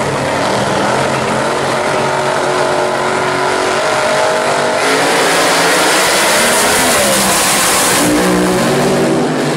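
Two drag racing cars' engines running at the starting line, then launching at full throttle about halfway through and accelerating hard down the strip, with the sound easing as they pull away near the end.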